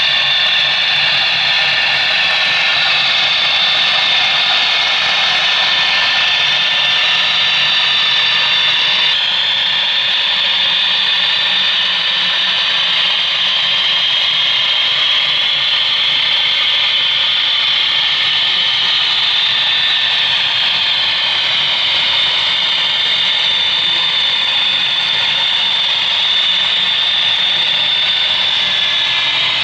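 HO-scale model diesel locomotives and freight cars running on the layout's track: a steady, thin mechanical hum with a few steady tones riding on it. The sound changes abruptly about nine seconds in.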